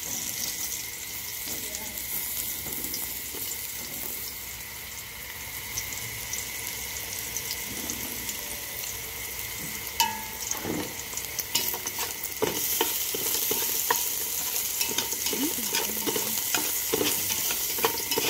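Sliced dried shiitake mushrooms sizzling in the bottom of an aluminium pot. From about ten seconds in, chopsticks click and scrape against the pot as they are stirred, and the sizzle grows louder a couple of seconds later.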